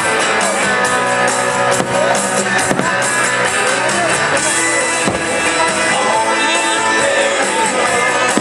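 Rock music with guitar and drums playing loud and steady, the soundtrack of a fireworks show.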